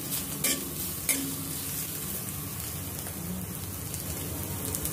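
A tempering of spices, garlic and green chillies sizzling in hot oil in a stainless steel kadhai while a steel spatula stirs and scrapes the pan. A couple of short scrapes come in the first second or so, then a steady sizzle.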